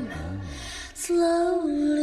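Early-1960s pop song: a woman sings one long held note over the band's backing, coming in about a second in after a quieter moment.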